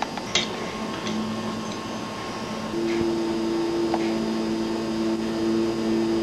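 Sustained low electronic drone: one steady note comes in about a second in, and a second note a fifth higher joins it under two seconds later, both held. A sharp click sounds near the start, over a faint hiss.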